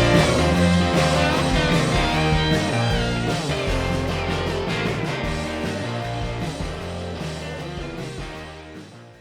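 Background rock music with guitar, fading out steadily toward the end.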